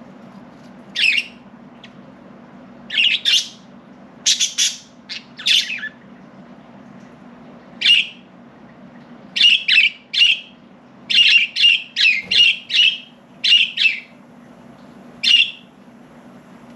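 Budgerigars giving short, sharp chirps and squawks, some single and some in quick runs of several calls. A faint steady low hum runs underneath.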